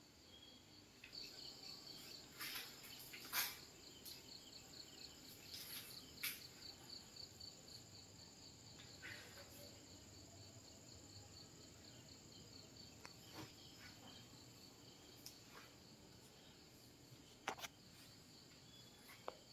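Near silence: faint room tone with a faint, evenly pulsing high-pitched trill through the first half and a few soft scattered clicks.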